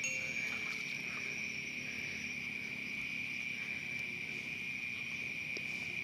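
Steady, high-pitched chorus of night insects such as crickets, trilling without a break.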